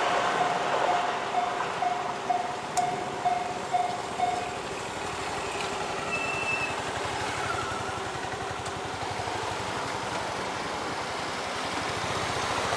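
Japanese level-crossing warning alarm ringing about twice a second just after a train has passed, then stopping about four and a half seconds in as the crossing clears. Steady noise of traffic follows.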